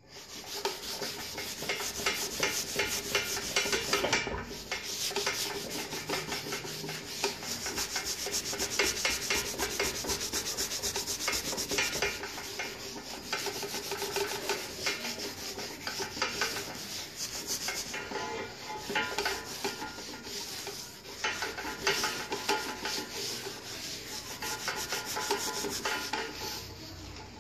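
Abrasive pad rubbing over an engraved metal wheel hub in quick back-and-forth strokes: a continuous dry scratching with a few brief pauses. The pad is scuffing back the raised carving so the blackened background stays dark.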